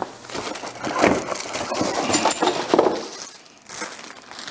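Metal TV wall-mount bracket being picked up and handled: a run of metallic clinks and rattles for about three seconds, with a short high ring about two seconds in, then quieter.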